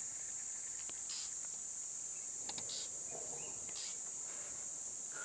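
Steady high-pitched insect drone, with a few brief chirps breaking in over it.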